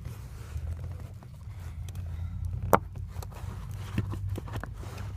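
Rubber steering-shaft boot being worked back onto the greased shaft by hand: faint rubbing and scraping, with one sharp click a little past halfway and a few small ticks near the end.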